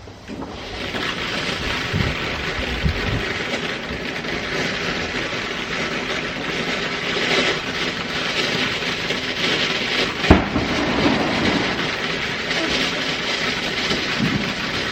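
A lit firework hissing and crackling steadily, starting just after the beginning, with a few pops and one louder crack about ten seconds in.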